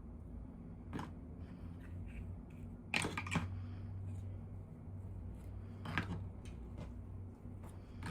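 Hands handling plastic toy packaging and doll pieces: a few sharp clicks and crinkles, loudest in a cluster near the middle, over a steady low hum.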